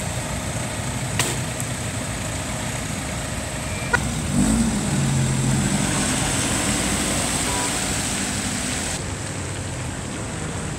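Car engines running and a car passing on wet tarmac, its tyres hissing on the water; the hiss swells about four seconds in and fades near the end. A couple of sharp clicks stand out, one about a second in and another about four seconds in.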